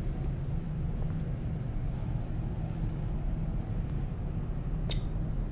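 Wind buffeting the microphone on an open ship's deck: a steady low rumble, with one brief high squeak near the end.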